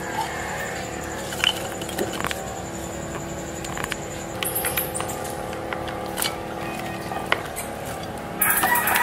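Chickens clucking and a rooster crowing, the crow loudest near the end, with a few light clicks scattered through.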